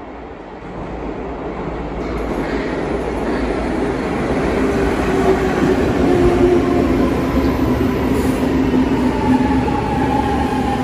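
Milan Metro Line 1 train arriving at a platform. It grows louder as it comes out of the tunnel, then runs past with a steady rumble. A whine appears about halfway through and falls slightly in pitch toward the end as the train slows.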